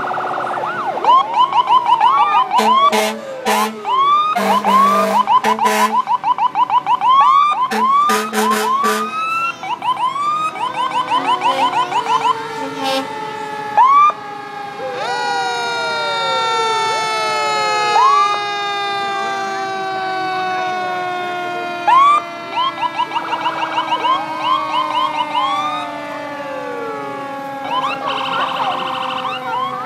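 Several fire engine sirens sounding at once as the trucks pass, mixing fast repeating yelps with long, slowly falling wails. Short, deep horn blasts come in the first ten seconds.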